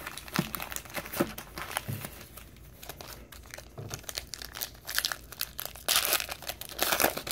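Crinkling of foil trading-card pack wrappers as a stack of packs is handled and one is pulled free: irregular crackles, heaviest in a denser burst near the end.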